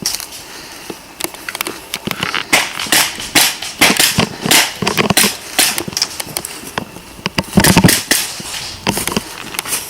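Irregular sharp cracks and rustling crackles with no steady rhythm, thickest a few seconds in and again near the end.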